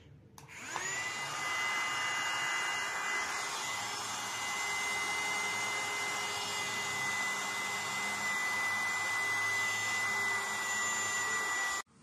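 Mini USB handheld vacuum cleaner switched on, its small motor spinning up with a rising whine over about a second, then running steadily with a high whine and an airy hiss. It stops suddenly near the end.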